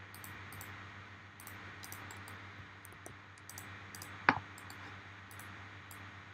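Scattered faint clicks of a computer mouse and keyboard over a steady low hum, with one louder click about four seconds in.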